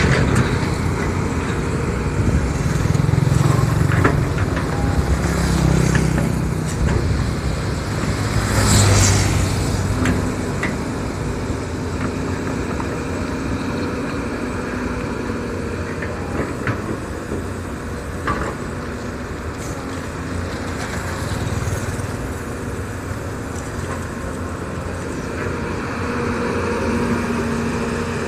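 Volvo EC210B tracked excavator's diesel engine running steadily as the machine digs dirt. It swells louder several times in the first ten seconds, most of all about nine seconds in, with a few short knocks along the way.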